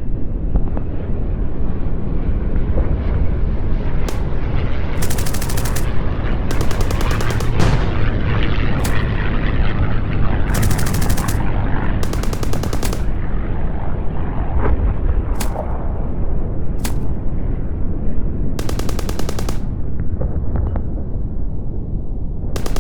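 Battle sound effect of gunfire: a continuous rumble of distant shooting, broken by bursts of rapid machine-gun fire lasting about a second each, roughly every couple of seconds to several seconds, and a few single sharp shots in between.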